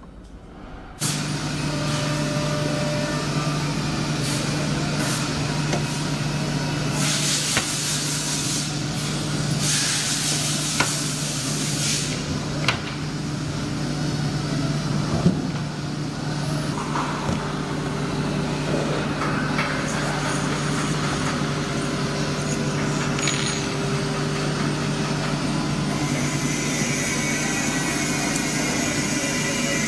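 A woodworking panel machine running with a steady hum that starts abruptly about a second in, broken by several bursts of compressed-air hiss and a few sharp clicks.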